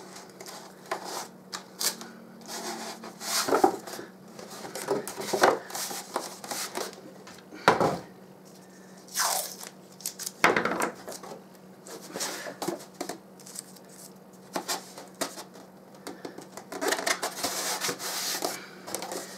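Masking tape being pulled off the roll and torn, mixed with foam airframe parts rubbing and knocking as they are handled and taped together for a trial fit: a string of irregular rasps, rips and rubs with short pauses between.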